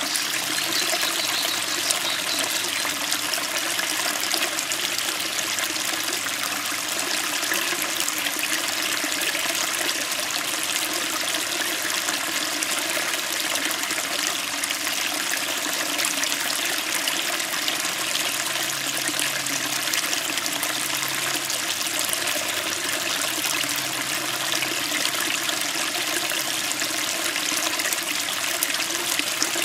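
Small stream running and splashing over rocks: a steady, crisp rush of water.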